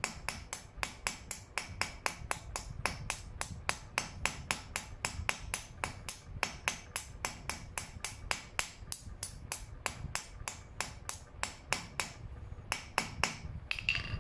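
Rapid light taps of a ball-peen hammer on the end of a nail used as the pin of a small brassed steel armour hinge, resting on an anvil, about four or five taps a second: peening the nail end over to rivet the pin in place. The tapping stops near the end.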